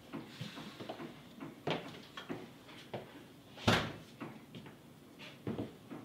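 An interior door being opened and shut, with a loud knock about three and a half seconds in among softer knocks and rattles.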